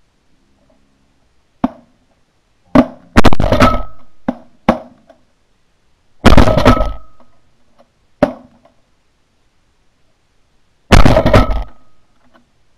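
A ragged volley of shotgun shots from several hunters, about nine in all, firing 7.5 shot dove loads. The three loudest shots come about three, six and eleven seconds in, each trailing off for about a second, with quieter shots from the other guns between them.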